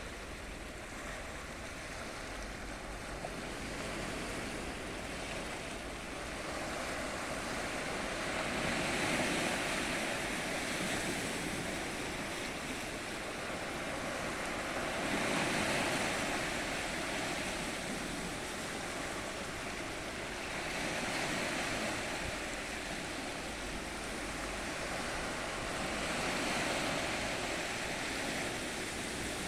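Ocean waves breaking and washing in, the surf swelling and easing about every five to six seconds.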